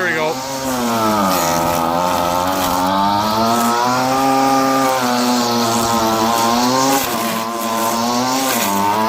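An engine running loudly, its pitch dipping and rising again every second or two as the revs change.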